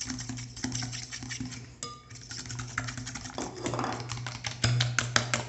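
Fork and small whisk beating tapioca starch into beaten eggs in a glass bowl, a quick run of clicks against the glass that gets louder near the end.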